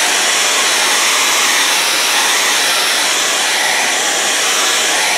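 Handheld hair dryer running, a loud even rush of air with a faint steady whine, blowing hot air over freshly applied frame-protector tape.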